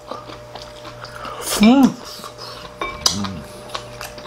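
Chopsticks clicking and scraping against plates and bowls while eating, in light scattered clicks. A wordless vocal sound rising and falling in pitch comes about a second and a half in, the loudest thing here, and a shorter, lower one about three seconds in.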